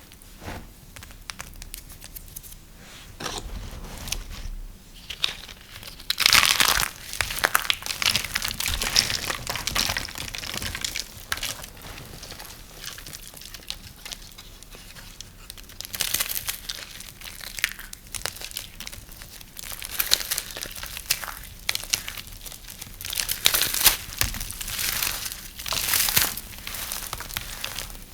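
A blade cutting through dry, brittle soap: crisp crackling and crunching in irregular strokes, the loudest about six seconds in and again near the end.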